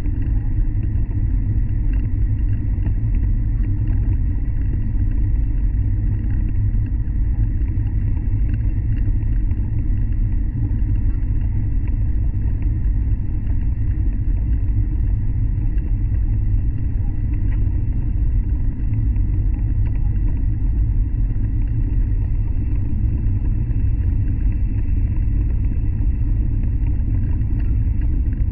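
800 Series Shinkansen running at speed, heard from inside the passenger car: a steady, loud low rumble of wheels and running gear.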